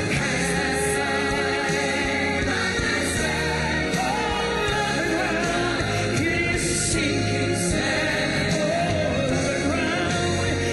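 Gospel-style choir singing with instrumental accompaniment; the music runs steadily at full level.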